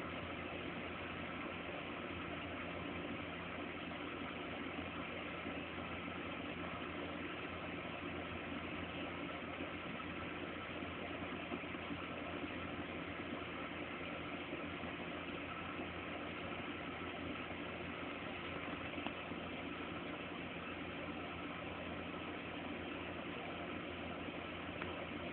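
Steady background hum and hiss that stays even and unchanged throughout, with no distinct events.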